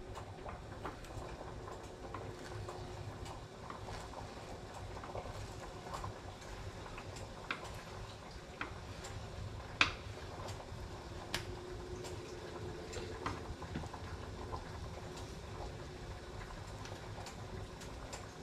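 A knife cutting a raw sea trout fillet into chunks on a wooden cutting board: scattered sharp taps of the blade on the board, the loudest about ten seconds in, over a low steady rumble.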